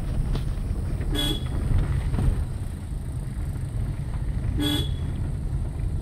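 A vehicle horn gives two short toots about three and a half seconds apart, over a steady low rumble.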